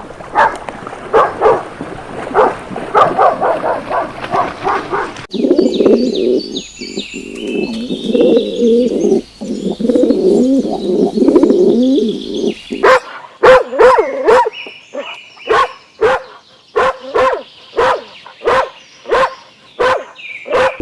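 A sequence of animal sounds that changes abruptly. First a dog barks repeatedly for about five seconds. Then doves coo with small birds chirping above them, and after that comes a run of evenly spaced loud calls, about one and a half a second.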